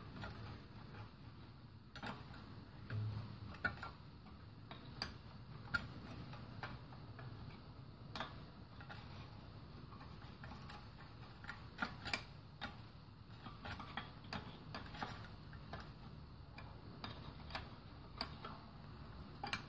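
Irregular light metal clicks of an open-end wrench shifting on a nut welded to a snapped intake-manifold bolt, as the lubricated bolt is slowly worked back and forth to ease it out of the engine block.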